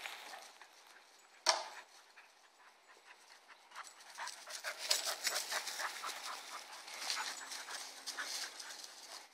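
Dogs panting hard in quick, rough breaths as they run and play, getting busier and louder in the second half. A single sharp knock about a second and a half in.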